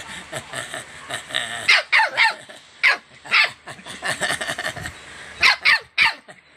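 Puppy yipping: short high-pitched cries that each fall in pitch, coming in quick clusters of two or three, the loudest near the end.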